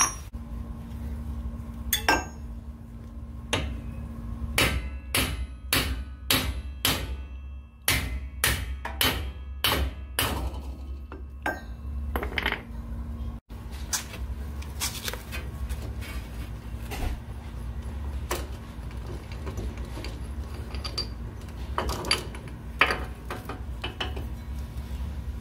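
Hammer blows on the end of the pinion shaft, driving the pinion gear out of a Dana 44 M210 front axle housing. Sharp metal strikes come about two a second in the first half, then single blows spaced further apart, over a steady low hum.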